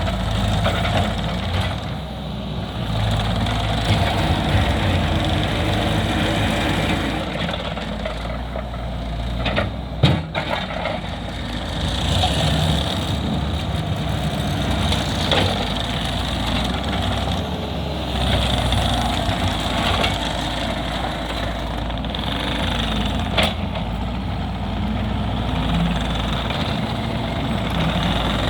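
Case TV380 skid steer's diesel engine running, its sound rising and falling. A couple of sharp knocks cut through it, the loudest about a third of the way in.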